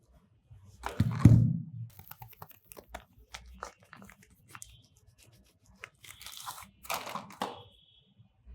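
Soap packaging being torn open and crinkled by hand: a loud rip about a second in, scattered crackling as it is handled, then a second tearing rustle near the end.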